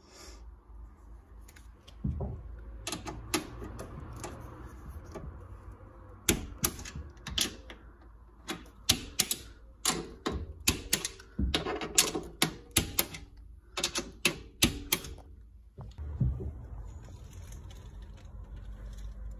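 A 6 Nm preset torque screwdriver clicking as it reaches its set torque while the burner's nuts are done up. The sharp, irregular clicks come in quick runs for about ten seconds, with a couple of handling thuds before and after.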